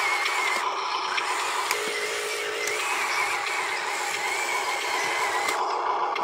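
Electric drive motor and gearbox of a Huina radio-controlled dump truck whining steadily as it drives loaded with dirt, the high whine wavering slightly in pitch.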